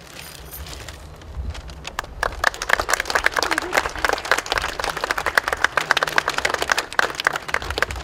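Audience applauding, starting about two seconds in, building into a steady patter of many claps and tapering off near the end.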